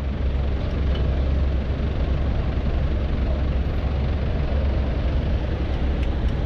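Street traffic with cars and trucks idling close by in a queue at a light. It makes a steady low rumble.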